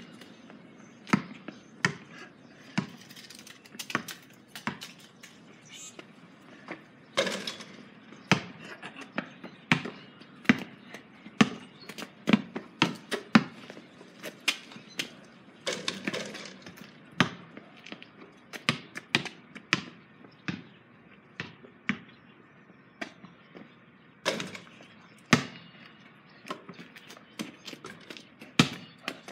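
A basketball bouncing on a concrete driveway: irregular sharp knocks, at times several quick bounces in a row as it is dribbled, with a few louder strikes between.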